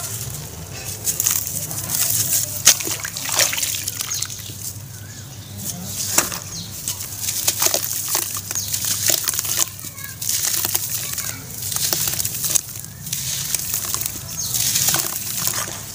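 Wet slabs of charcoal ash crunching and crumbling between the fingers and breaking into water in a plastic tub, with sloshing and splashing. Irregular crisp crackles and snaps come one after another, with a few sharper cracks.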